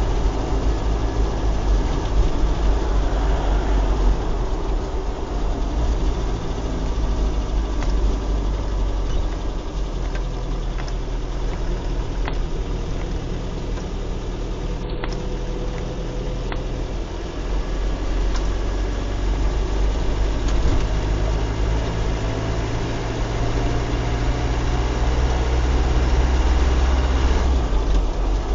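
Car engine and wet-road tyre noise heard from inside the cabin while driving. It eases off for a few seconds around the middle, then picks up again with a slowly rising engine note as the car accelerates.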